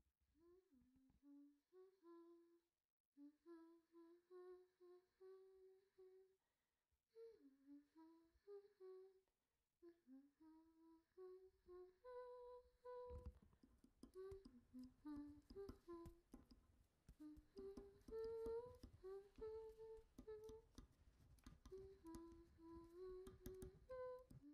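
A person humming a slow, gentle tune, faint. About halfway through, a run of soft ticks and scratches starts up beneath the humming.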